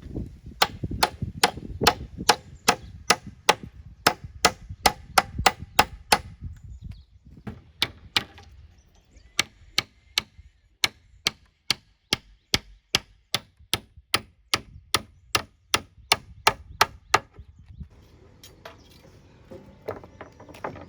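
A tool striking wood in a steady run of sharp blows, about three a second, with a brief pause partway through; the blows stop near the end and a fainter scraping noise follows.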